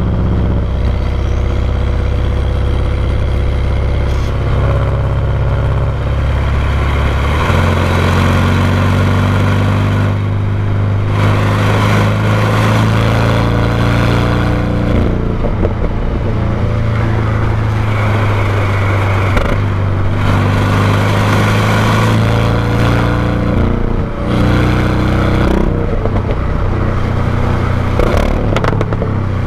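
Porsche 718 Cayman GTS's turbocharged flat-four exhaust on the stock system, recorded close to the tailpipe. It runs loudly, and the engine note jumps to a new pitch several times, most clearly about seven seconds in.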